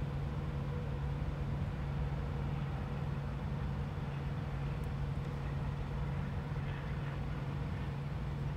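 Steady low hum of an idling engine, with a faint brief rustle about seven seconds in.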